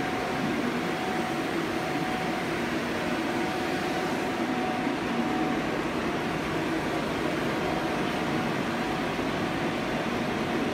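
Nakamura-Tome TW-20 CNC turning lathe running with a steady mechanical hum and a faint steady whine, without change.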